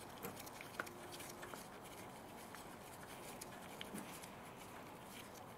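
Faint small clicks and handling noises as a new A/C refrigerant pressure sensor is screwed by hand into its fitting on the air-conditioning line.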